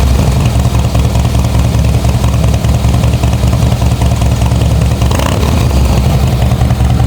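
2007 Harley-Davidson Night Train's Twin Cam 96 V-twin running steadily through a newly fitted Bassani Road Rage 2-into-1 exhaust, with a loud, low rumble.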